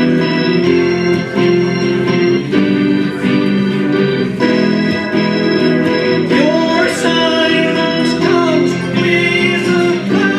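Organ music: sustained chords with a melody moving above them, playing continuously.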